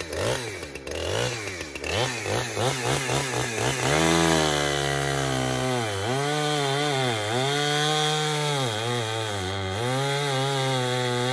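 Two-stroke gas chainsaw revving up and down repeatedly, then held at full throttle and cutting through an oak log, its pitch dipping each time the chain bogs in the cut.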